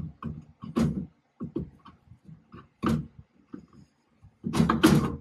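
Irregular metal knocks, clinks and scrapes as a heavy rear differential third member is worked into a Toyota Tacoma's axle housing and onto its studs, with a louder burst of clatter near the end as it seats.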